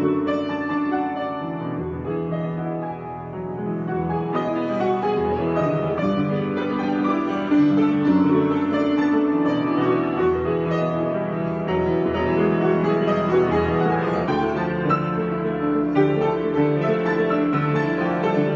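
Piano playing an improvisation: a continuous flow of chords and melody notes, several notes sounding at once.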